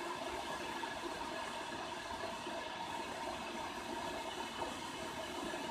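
Electric kettle heating water with its lid open: a steady hiss and rumble from the heating element, the water still only about 40 °C and far from the boil.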